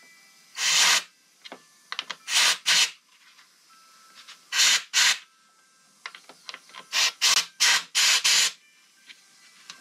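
Short bursts of compressed air from an air blow gun hissing into a motorcycle brake caliper, about nine in four groups, forcing the caliper piston out against a cloth-covered wooden block to test it.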